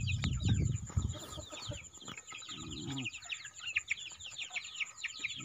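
A flock of chickens: chicks peeping constantly in short falling chirps, with hens clucking. A burst of low noise comes in the first second.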